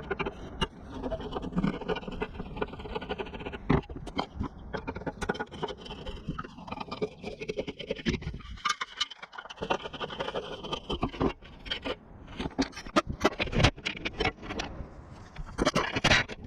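Metal parts and hand tools scraping and clinking in uneven bursts, with scattered sharp knocks, as bumper hardware is worked on.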